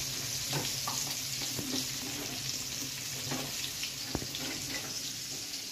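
Marinated prawns sizzling in oil in a frying pan: a steady hiss, with a single small click about four seconds in.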